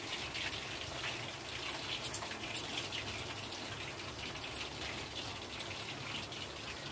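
Marinated chicken pieces deep-frying in hot oil in a kadai: a steady sizzling hiss with scattered crackles as more pieces are dropped into the oil by hand.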